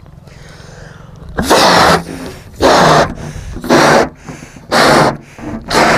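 A person blowing up a rubber balloon by mouth: five hard breaths blown into it about once a second, each a loud rushing gust, with quick inhales in between.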